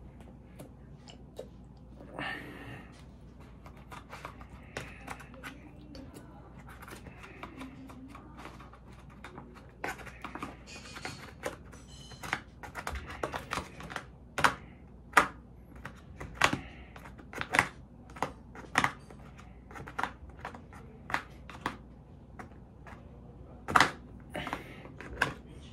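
Close-up eating sounds: chewing and mouth smacks, with a run of sharp clicks and crinkles from handling food in paper and foam takeout containers. The clicks grow denser and louder about halfway through.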